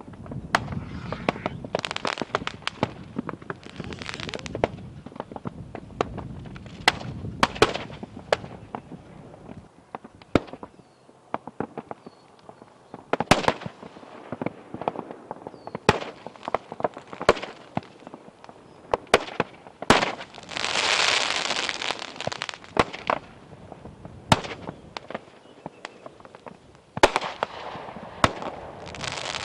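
A pit full of 1.4G consumer fireworks burning off in a mass: irregular sharp bangs and pops with crackling between them, and hissing bursts, the longest about twenty seconds in.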